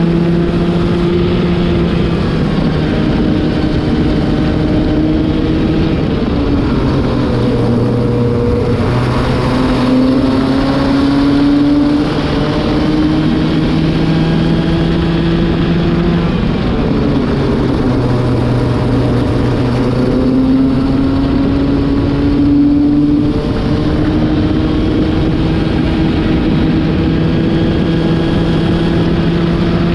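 Racing kart engine running hard on track while a new engine is being run in. Its note drops and climbs back up twice, around 7 seconds and 17 seconds in, as the kart slows for corners and pulls away.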